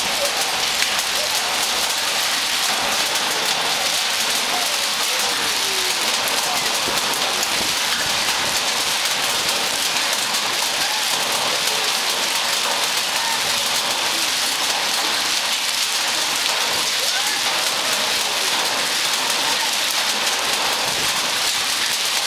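Heavy downpour mixed with hail pelting the ground: a steady, dense hiss with many fine pattering impacts, unchanging throughout.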